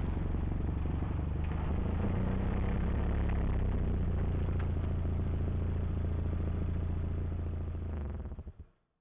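Vehicle engine running steadily at low revs, with a deep even hum, fading out shortly before the end.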